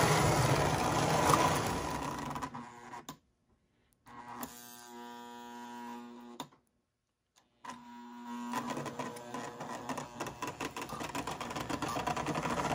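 Lionel 2056 Hudson toy steam locomotive running on tinplate three-rail track: a steady whirr and rattle of its motor and gears. The running noise drops out for a few seconds in the middle, leaving only a quieter steady hum, then returns with fast, even clicking as the engine moves again.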